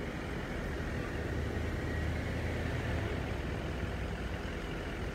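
Motor vehicle engine idling, a steady low rumble that swells a little through the middle and eases again.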